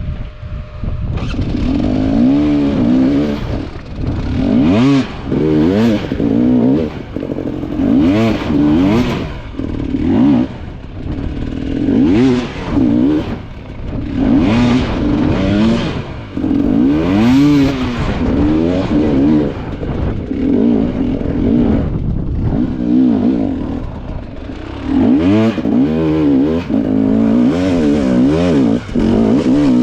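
Two-stroke dirt bike engine revving hard and falling off again and again in short bursts of throttle, as when working up a technical hard enduro section.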